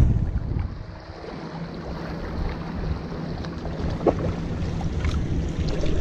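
Wind rumbling on the microphone over small waves washing against breakwater rocks. A gust dies away in the first second, and there are a couple of faint clicks near the end.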